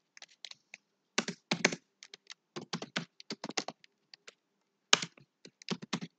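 Typing on a computer keyboard: uneven key clicks coming a few at a time, with short pauses between them.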